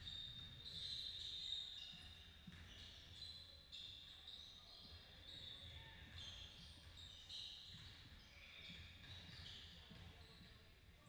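Faint basketball game play on a gym court: short, high sneaker squeaks come again and again, over low thuds of a ball bouncing.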